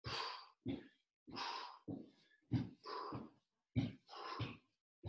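A man breathing hard from exertion: short, forceful panting breaths in and out, about eight in five seconds, in an uneven rhythm.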